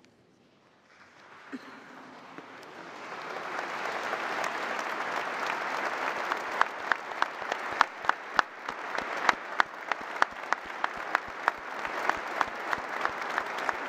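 A large congregation applauding, swelling up from near silence over the first few seconds. About halfway through, the clapping falls into a rhythmic unison beat of about three claps a second.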